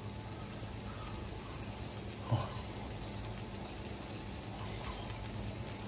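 Steady sizzling of lamb roasting on a grill, with one brief mouth sound a little over two seconds in from someone eating the hot meat.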